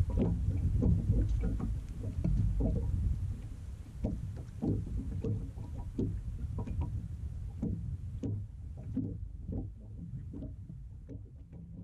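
Wind buffeting the microphone and small waves slapping against a fishing boat's hull, with scattered light knocks; the wind eases over the last few seconds.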